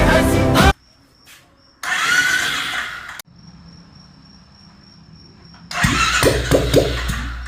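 Royal Enfield 350cc single-cylinder engine starting and running with a low, pulsing beat from about six seconds in, after a brief burst of mechanical noise around two seconds. A faint thin high whine sits in the quieter stretch between.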